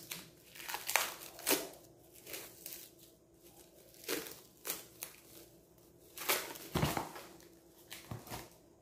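Clear plastic wrapping crinkling in irregular bursts as hands unwrap and handle packed items in a box, the loudest handful a little past the middle.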